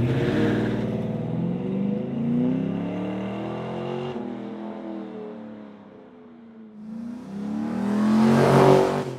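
LS V8 exhaust through Flowmaster 50 Series Heavy-Duty mufflers as the Chevrolet C10 pulls away, the exhaust note fading as it goes. Near the end the same LS V8 revs up again, louder, now through a Flowmaster FlowFX muffler.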